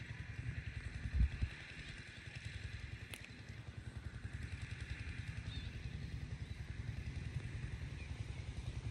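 A small engine running steadily, with one thump about a second in.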